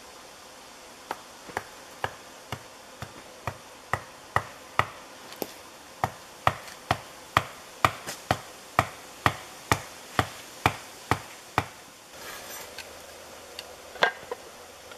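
Repeated blows of a hand tool on a wooden stake, a sharp woody knock about twice a second for roughly ten seconds, then stopping. A few more single knocks come near the end.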